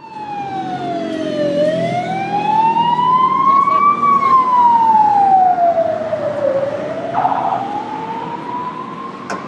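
Emergency vehicle siren in a slow wail, its pitch sweeping down and back up about every five seconds over street traffic noise. It grows louder toward the middle and eases off a little near the end, and a short buzz cuts in about seven seconds in.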